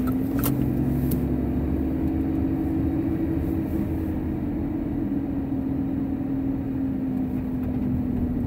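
Car interior noise while driving: a steady engine hum over low road rumble. The hum's pitch rises slightly and then slowly sinks again.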